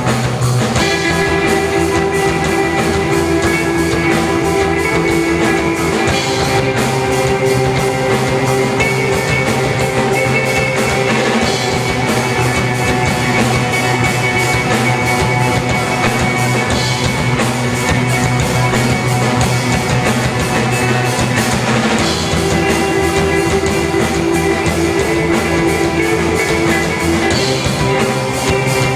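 Rock band playing: guitar and drum kit over a steady, dense beat.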